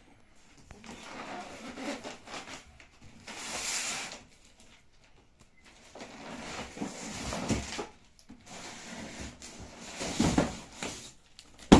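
Packaging rustling and scraping as a sewing machine is unboxed, in several separate bursts, with a sharp knock near the end.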